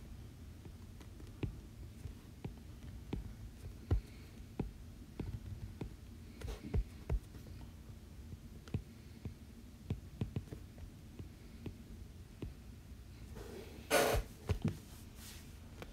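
Stylus tapping and stroking on a tablet's glass screen: scattered, irregular soft clicks over a low steady hum, with a short louder rush of noise near the end.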